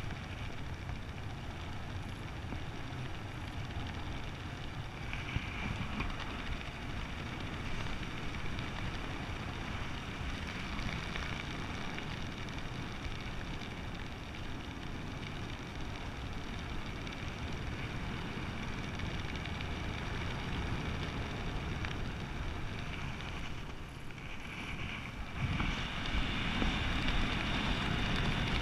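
Steady rush of airflow buffeting the microphone during flight under an open ram-air parachute canopy, getting louder about three-quarters of the way through.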